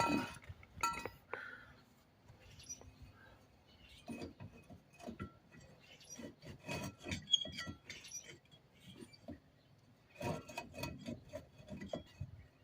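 Light metallic clinks, taps and scrapes of brake parts and hand tools being handled, in three bunches: at the start, through the middle and again near the end.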